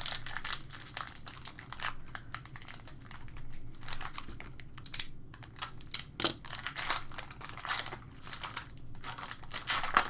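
A 2016 Upper Deck Marvel Masterpieces trading card pack being torn open and handled, its wrapper crinkling in a run of irregular rustles and crackles.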